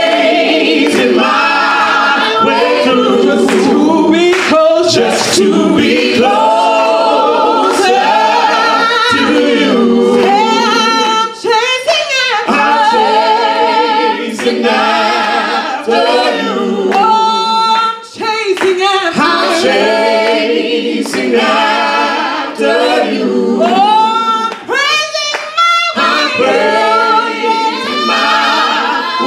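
A gospel praise team of men and women singing together in harmony into microphones, with no instruments heard.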